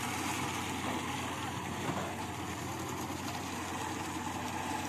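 Marine engine idling steadily, its low hum under a wide hiss of wind and sea.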